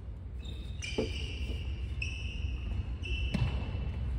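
Badminton players' court shoes squeaking on a wooden sports-hall floor in a run of short squeals, with two sharp racket hits on the shuttlecock, about a second in and near the end, over a low steady rumble.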